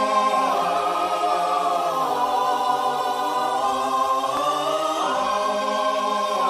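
A choir singing slow, long-held chords that shift to new notes every second or two.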